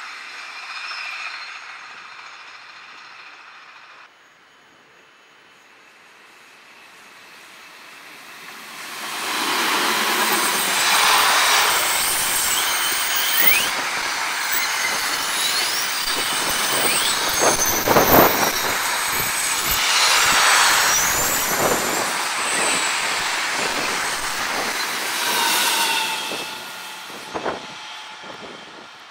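Freight train of intermodal wagons carrying semi-trailers passing close on a curve: a loud rush of wheels on rail with high, wavering wheel squeal and a few knocks. It builds up about nine seconds in and fades near the end. Before that, a receding train's squeal and rumble dies away.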